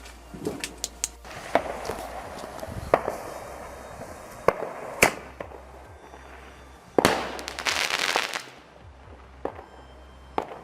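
Fireworks going off: a string of sharp bangs and pops, then about seven seconds in a loud bang followed by over a second of dense crackling.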